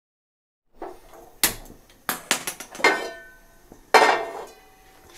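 Metal cookware clattering on a gas stove: a string of knocks and clanks with brief ringing, the loudest about four seconds in as a non-stick frying pan is set down on the burner grate.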